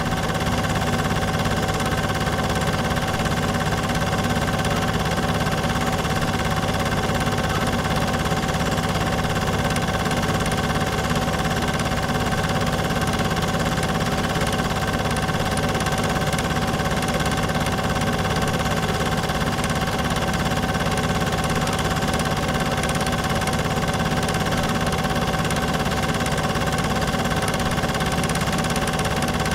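Cine film projector running steadily: an even motor hum with a fast, regular mechanical chatter from the film-advance mechanism.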